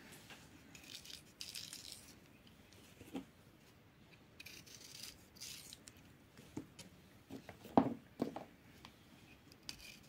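Faint scraping and rustling of a small kitchen knife slitting fresh green bean pods lengthwise and the pods being handled on a stone counter, with a few sharp clicks, the loudest about three-quarters of the way through.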